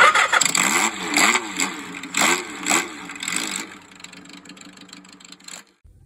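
Motorcycle engine starting and revved in a string of quick throttle blips, its pitch swinging up and down, then dropping to a steadier, quieter run before cutting off abruptly.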